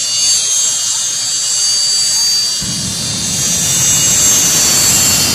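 Green Mamba jet car's jet engine with a steady high whine. About two and a half seconds in, a deep rumble cuts in suddenly as the afterburner blasts flame and smoke out of the tail.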